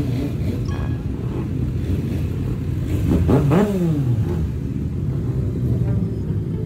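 Big motorcycle engines running at low speed in a group, with one rev that rises and falls about three seconds in.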